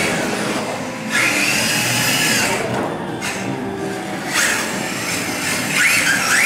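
Electric motor of a rear-wheel-drive radio-controlled drift car (D-Like Sound-Meister EVOL on a carbon chassis) whining in three bursts as the throttle is worked, its pitch rising and falling, over a steady hiss.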